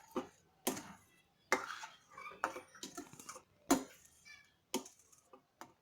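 A spoon scraping and knocking against a kadai while stirring thickening carrot halwa, with a sharp knock about once a second. It is being stirred constantly on a low flame to keep the bottom from burning.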